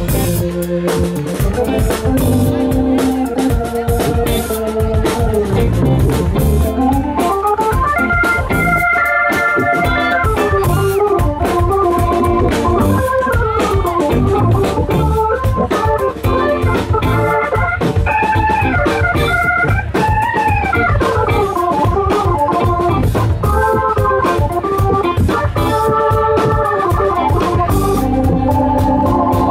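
Live band playing an instrumental passage: a wandering lead melody, organ-like in tone, over bass and drums.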